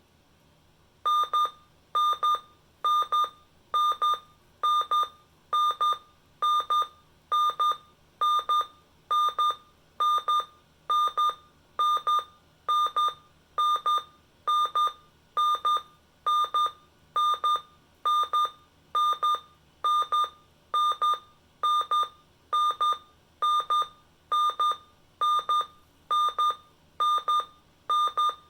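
Emgykit MD-319 alarm sounding: a loud, high electronic beep repeated evenly a little faster than once a second, starting about a second in.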